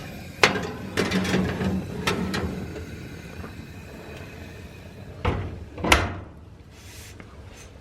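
Gas oven door opened and a baking tray put in, with knocks and clatter, then two louder knocks about five and six seconds in as the door is shut.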